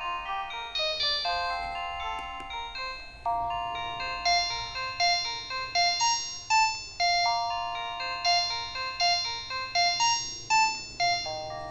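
Modottel WTE-300 mobile phone playing a 16-voice polyphonic MIDI ringtone through its small built-in speaker: a quick synthesized melody of bright chiming notes with chords underneath, with no bass.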